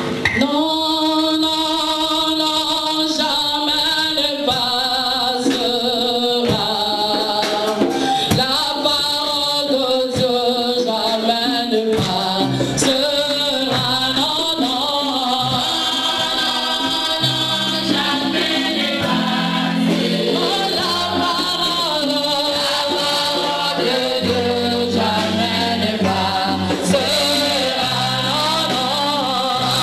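Church choir singing a gospel song, with a low bass line joining about twelve seconds in.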